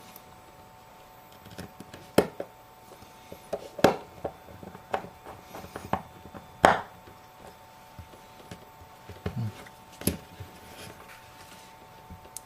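Irregular small clicks and taps of hand tools and small iPhone parts being handled and pressed together on a work surface during a screen repair, a dozen or so sharp knocks spread unevenly, the loudest about two, four, six and a half and ten seconds in.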